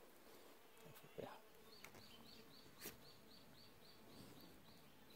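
Near silence, with a small bird's faint repeated high chirp, about four notes a second, starting about two seconds in and running to near the end. Two faint knocks, about one and three seconds in.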